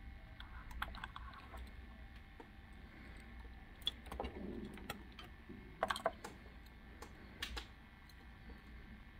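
Scattered faint clicks and taps from small die-cast toy cars and cardboard packaging being handled on a desk, a few sharper ones about halfway through.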